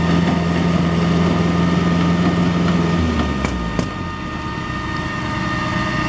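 Concrete pump truck's engine running steadily at raised speed, then dropping to a lower idle about halfway through as pumping ends. Two sharp knocks follow shortly after.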